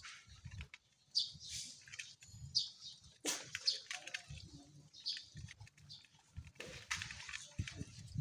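Several dogs eating rice together from a shared tray, with irregular chewing, smacking and gulping.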